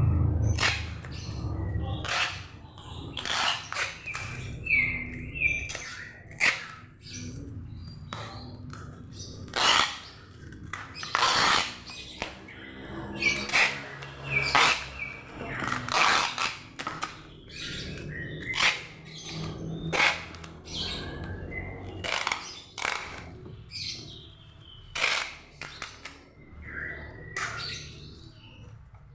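Packing noises: a run of sharp crackles, rips and knocks as packaging is handled, with short high squeaks or chirps among them and a longer ripping stretch about eleven seconds in.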